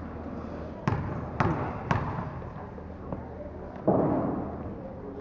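A basketball bounced three times on a hardwood gym floor, about half a second apart: a player dribbling at the free-throw line before the shot.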